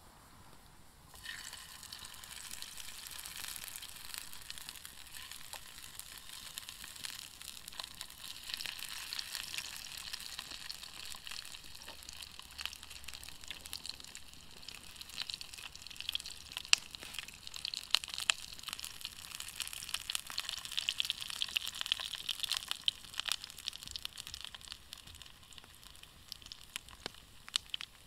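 Food frying over a fire: a steady sizzle with many scattered pops and crackles, starting abruptly about a second in.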